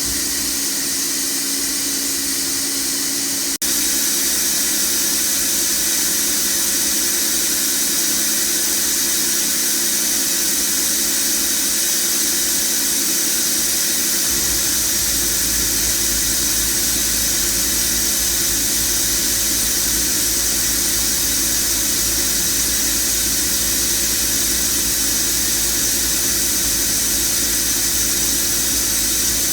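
FANUC Robodrill α-T21iFLa vertical machining centre with its 30-taper spindle running at speed: a steady high-pitched whine over a constant hiss. About three and a half seconds in there is a click and the sound steps up in level, and a low hum joins in around the middle.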